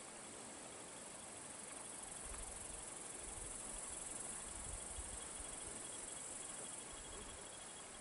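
Faint, steady high-pitched chirring of summer insects, with a low rumble joining from about two seconds in.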